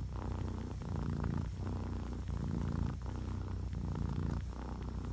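A cat purring close up, a steady low buzz that swells and dips with each breath, a little over once a second.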